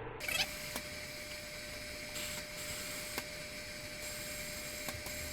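Air hissing steadily out of a tractor tire's inner tube through the open valve stem, with a few light ticks. The tube is being deflated from 30 psi to let it relax and shed its wrinkles before the valve core goes back in.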